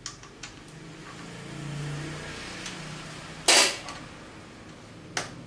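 Blue sheet-metal tool case being shut: a couple of light clicks, then a loud clang as the lid comes down about three and a half seconds in, and a sharper small click near the end.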